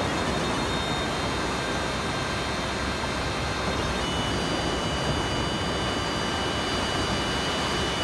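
Black Sea surf breaking on a sandy beach: a steady rush of waves. Faint held high notes of a tulum (Black Sea bagpipe) sound over it.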